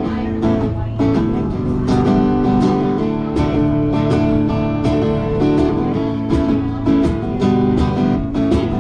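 Acoustic guitar strummed in a steady country rhythm, chords ringing with a regular beat of strokes and no singing.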